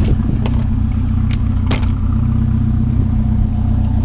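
Vehicle engine idling steadily, with a few sharp knocks and clatters over it about half a second, a second and a half, and nearly two seconds in.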